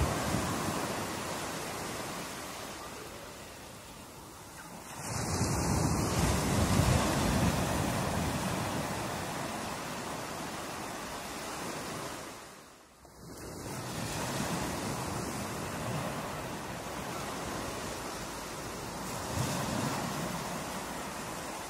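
Ocean waves breaking and washing in, with wind buffeting the microphone. The surf swells louder about five seconds in, and the sound drops away briefly about thirteen seconds in.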